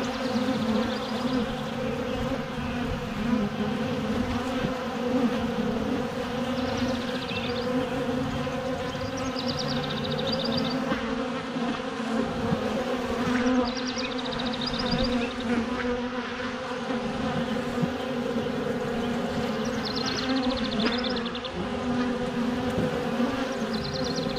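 Honeybees buzzing in a steady hum.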